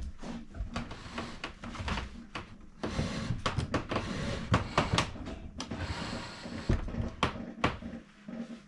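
Wooden cabinet parts being handled: an irregular run of knocks and clacks, with stretches of scraping about three seconds in and again near six seconds.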